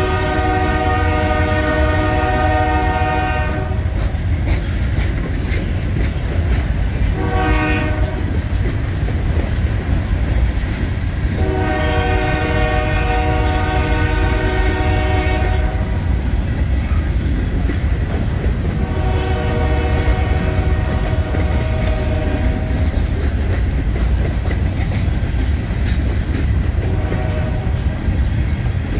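Union Pacific freight locomotive's air horn sounding five blasts: long, short, long, long, short. These are signals for the grade crossings through town. Under the horn, the long gondola train's cars rumble steadily as they roll past.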